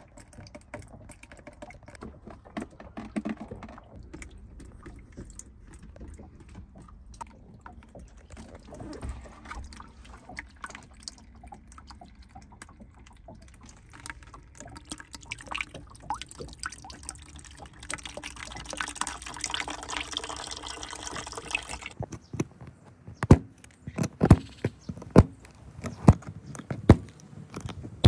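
Water dripping and pouring into a plastic bucket: water drained from a boat cabin that leaks. Near the end, a run of sharp, loud knocks comes a little under a second apart.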